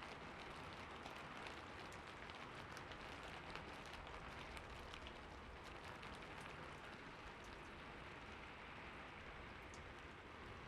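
Light rain falling: a soft steady patter with scattered individual drops ticking, a little busier in the first half.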